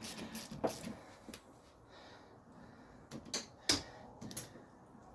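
A few sharp metallic clicks and knocks with quiet stretches between them, one less than a second in and two close together past the middle, as a socket wrench works the stud out of an engine mount with an E10 Torx socket.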